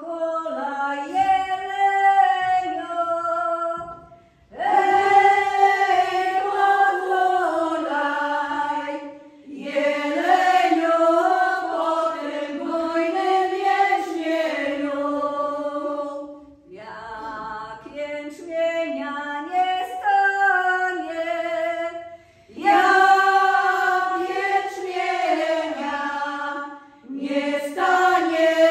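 A group of women singing a traditional Polish folk song together, unaccompanied, in sung phrases of about five or six seconds with short breaks between them.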